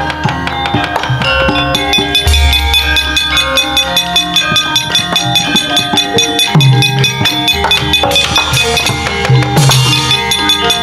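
Javanese gamelan ensemble playing a brisk piece: bronze metallophones ringing over a busy hand-drum rhythm, with deep gong-like swells now and then.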